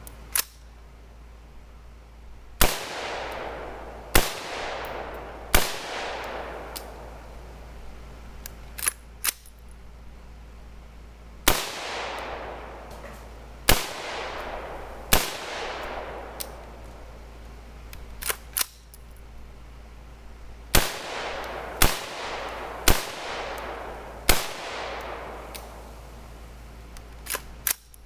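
AR-15 rifle with a 20-inch heavy barrel firing steel-cased .223 ammunition: about ten single shots in three groups, each with a long echo tail. Fainter sharp clicks come between the groups.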